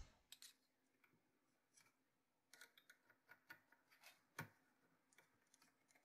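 Near silence with a few faint, scattered clicks of small parts and a screwdriver being handled.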